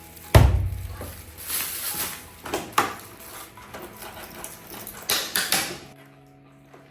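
Kitchen handling sounds: a heavy thump about a third of a second in, then a few scattered knocks and clatters as things are moved about.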